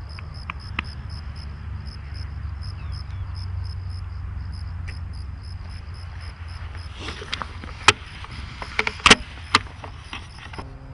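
Insect chirping in a high, evenly repeated pulse over a steady low rumble. From about seven seconds in come a few sharp knocks and clicks of the camera being handled.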